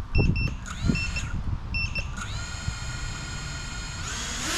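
Six-inch FPV quadcopter's brushless motors arming and spinning up with a rising whine that settles to a steady idle, with short paired beeps twice early on. Near the end the whine climbs in pitch and loudness as the throttle comes up for the hover test.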